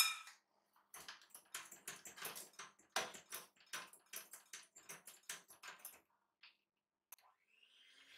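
Electric hand mixer and its metal beaters in a glass bowl of cake batter and flour: a sharp click, then a run of irregular clicks and taps as the beaters knock about the bowl. Near the end the mixer's motor starts, a whir rising in pitch.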